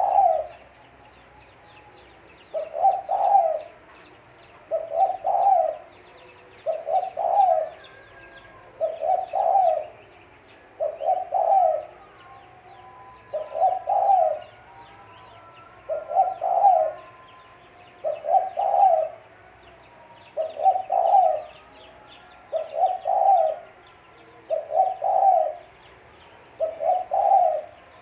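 Spotted dove (tekukur) cooing: a short phrase of several low coos, repeated about every two seconds. Faint high chirps run behind it.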